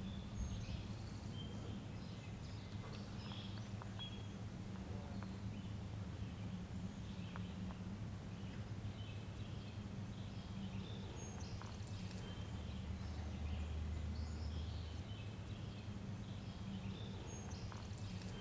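Small birds chirping faintly and on and off, in short high calls, over a steady low background rumble.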